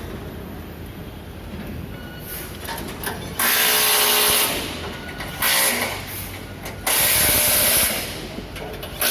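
Pneumatic air tool on an excavator assembly line, fired in four sharp bursts of about half a second to a second each, starting about three seconds in, over a steady factory background hum.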